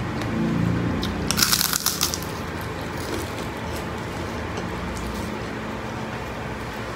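Crunchy biting and chewing of food close to the microphone, with a loud burst of crunches about a second and a half in that lasts under a second, then quieter chewing.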